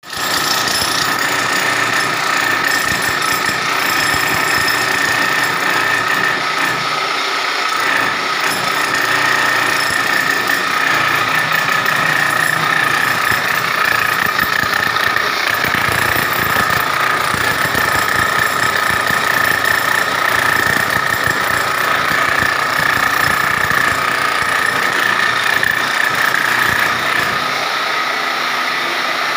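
Corded electric demolition hammer chiselling into a plastered masonry wall: a steady motor whine over rapid, continuous hammer blows, a little quieter near the end.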